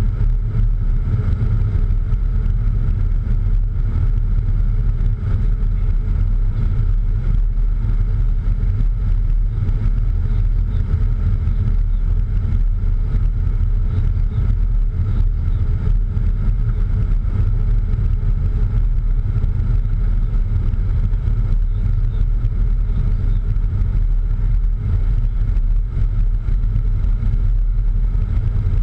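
Steady cockpit noise inside a Cessna Citation X business jet on final approach to landing: a deep, even rumble of engine and airflow, with a fainter steady hum higher up.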